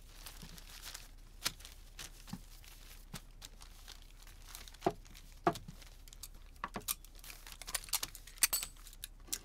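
Paper crinkling and rustling in scattered short crackles: a letter being folded and slipped into an envelope.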